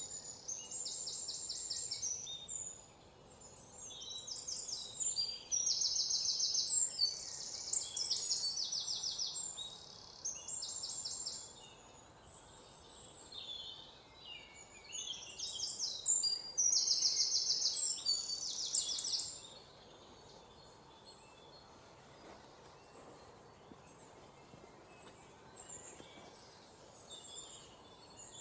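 Songbirds singing: high, rapid trilled phrases about a second long, repeated every second or two, giving way about two-thirds of the way through to sparse, faint chirps over a steady outdoor background.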